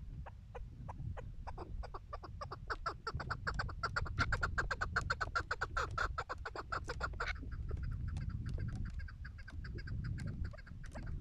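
Chukar partridges calling: a rapid series of clucking chuck notes that grows faster and louder for several seconds, then breaks off abruptly about seven seconds in, with fainter calling after.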